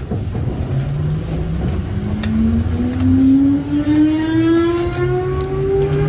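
Electric train's traction motors whining, rising steadily in pitch from about two seconds in as the train accelerates away from a station, over the low rumble of the running gear.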